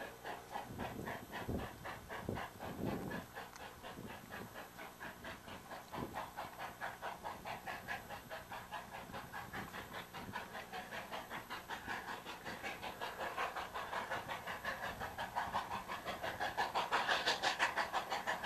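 Steam locomotive working hard with a passenger train, its exhaust chuffing in an even beat of about three to four chuffs a second. The chuffs grow louder near the end as the engine comes closer.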